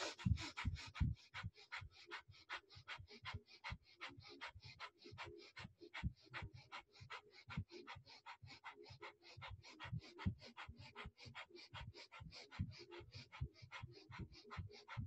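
Breath of fire: a woman's rapid, forceful breathing through the nose in an even rhythm, about four sharp breaths a second, close to a lapel microphone.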